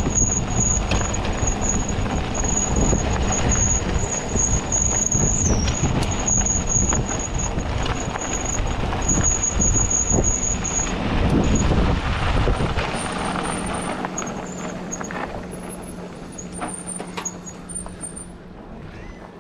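Mountain bike rolling fast down a dirt road: wind buffeting and tyre rumble over loose gravel and dust, with a thin high squeal in short pulses during the first half. About thirteen seconds in the rumble eases and the sound gets quieter as the bike slows.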